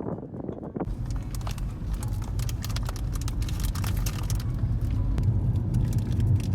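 Car driving: a steady low road and engine rumble with hiss over it, starting abruptly about a second in.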